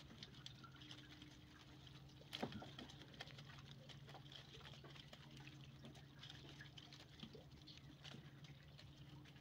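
Faint patter and dripping of a wet gill net being hauled and handled on a boat deck, with scattered light clicks and a sharper knock about two and a half seconds in, over a faint steady low hum.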